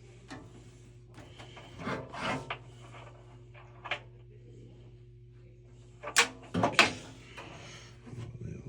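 Tools and metal parts being handled, with scrapes, rubs and clicks coming in two louder clusters, about two seconds in and again around six to seven seconds in, over a steady low hum.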